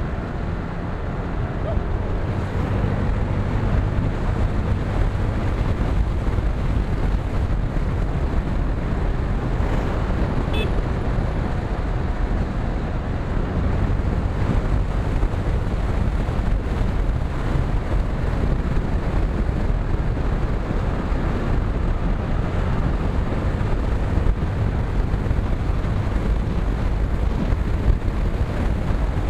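Motorcycle running at road speed, its engine drone mixed with steady wind rush on the microphone. It grows a little louder about two seconds in.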